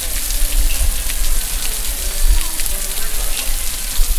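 Waterfall: a steady rush of falling water, with a deep rumble underneath and a hiss on top.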